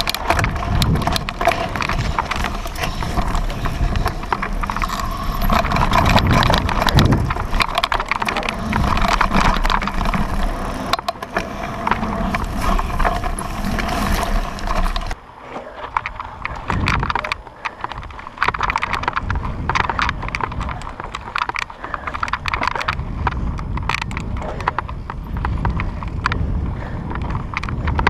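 Mountain bike ridden hard over a rough dirt course, heard from a camera on its handlebars: dense, irregular rattling and knocking of the bike over the bumps, with tyre noise over a steady hiss. About halfway through the hiss drops away and the rattling goes on more quietly.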